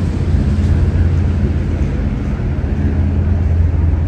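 A steady, low mechanical drone like an engine running, holding one pitch.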